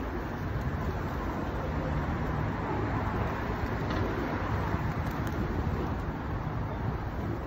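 Road traffic: a steady rumble of passing cars.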